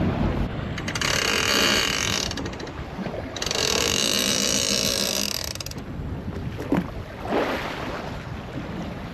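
Fishing reel's ratchet clicker buzzing as line is pulled off it in two bursts, the second longer, over a boat's steady background hum.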